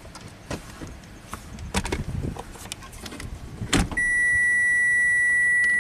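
A few clicks and knocks from handling inside the car, then about four seconds in a Toyota Camry Hybrid's dash warning chime starts a steady high continuous tone and holds it. The car is warning that the trunk is open as it is shifted into gear.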